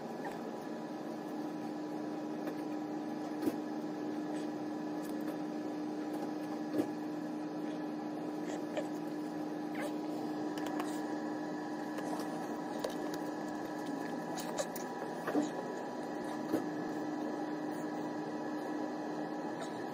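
Steady hum of a ferry's engines and machinery heard from inside the ship, with one steady tone running through it and a few faint ticks scattered throughout.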